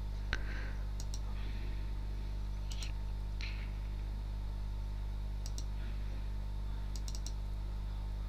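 Computer mouse clicking: a handful of short, sharp clicks, several in quick press-and-release pairs. A steady low electrical hum runs underneath.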